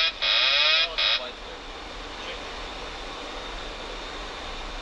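Boeing 737 autopilot disconnect warning wailing in repeated cycles, the last one cut short about a second in. The steady rush of flight deck air and engine noise follows.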